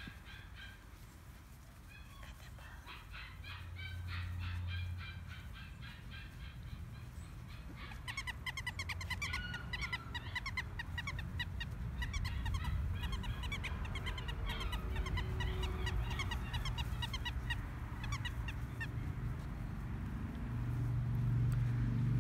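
Birds chirping in many short, quickly repeated calls, thickest in the middle, over a low rumble that grows louder near the end.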